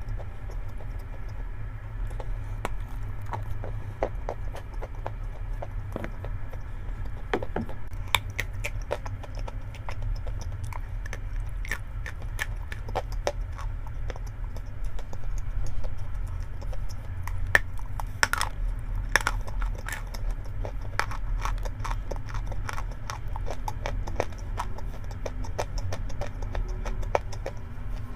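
Dry chalk being bitten and chewed: irregular sharp crunches and crackles, some louder ones in quick clusters, over a steady low hum.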